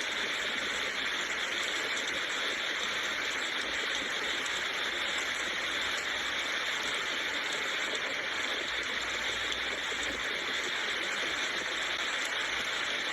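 Steady rainfall, an even hiss of many drops without pauses or changes.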